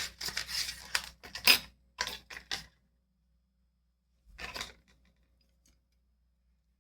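Clicks and light metallic clatter of reciprocating saw blades being handled, a quick run of sharp knocks over the first two and a half seconds, then one short rattle near the middle.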